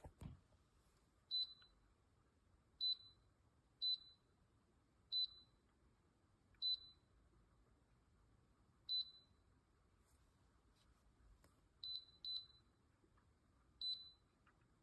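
Electronic beeps from a QRAGJBM travel electric kettle's control panel: about nine short, high single beeps at uneven intervals, two of them close together near the end. A brief low thump comes right at the start.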